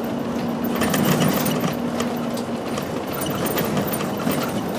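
Cabin noise of a route bus under way, played at double speed: engine and road drone with fast rattling and ticking from the bus fittings. A steady engine hum fades about two and a half seconds in.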